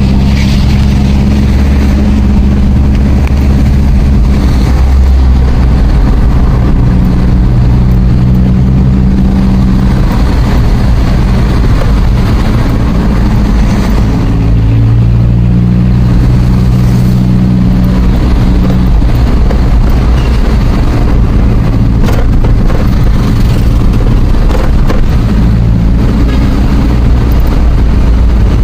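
Engine and road noise inside the cab of a moving vehicle, steady and loud, with the engine note stepping up and down in pitch a few times as the speed changes.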